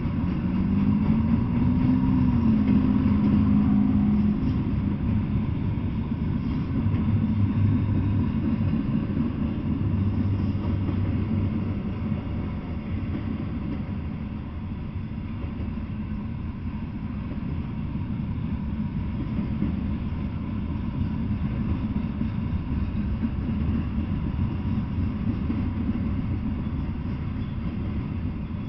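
Double-stack intermodal freight train rolling past: a steady rumble of the well cars on the rails. Low droning tones come and go during the first dozen seconds, and the rumble then eases slightly and holds steady.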